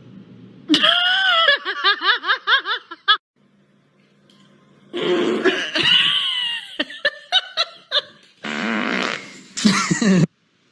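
Human farts from several short clips in a row, mixed with laughter. They come in three loud stretches with short quiet gaps between, the last one a rough, noisy blast.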